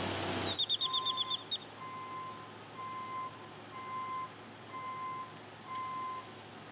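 A steady rumble cuts off half a second in, followed by a quick run of about nine high, falling bird chirps. Then an equipment warning beeper sounds six times, about once a second, each beep a single steady tone.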